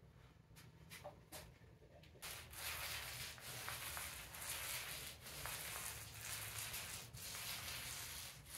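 Small paint roller rolling black paint onto a flat panel: a steady hiss that comes and goes in strokes about once a second, starting about two seconds in after a few light handling clicks.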